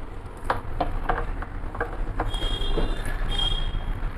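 Pliers working loose the gas stove's small threaded brass jet (nozzle) fitting: a series of sharp metal clicks and taps, with a brief high squeak in the middle, over a steady low hum.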